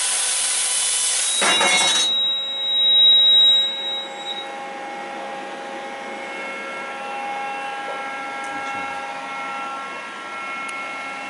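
Fiber laser cutting 1 mm SPCC cold-rolled steel sheet: a loud steady hiss of the assist gas and cut, which stops about two seconds in. A brief louder rush follows around three seconds in, then the machine settles into a steady hum with faint tones.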